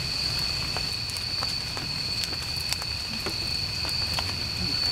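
Steady night chorus of crickets, a continuous high trill, with a scattering of short, sharp clicks and crackles over a low rumble.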